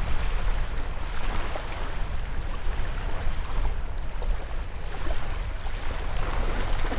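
Small waves washing in the shallows, with wind rumbling on the microphone.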